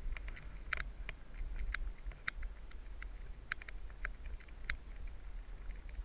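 Irregular sharp clicks and ticks, a few a second, over a steady low rumble.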